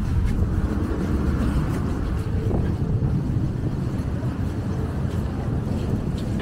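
Steady low rumble and general noise of a busy metro station entrance hall as people walk through it. No single sound stands out.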